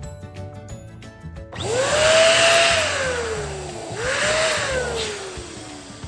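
Electric balloon pump running in two bursts of about two seconds each: a rush of air with a motor whine that jumps up in pitch as it starts, then sinks steadily as the balloon fills.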